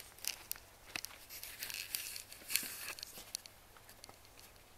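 Irregular crackling and rustling noise, busy for about three seconds and then dying down to a faint hiss.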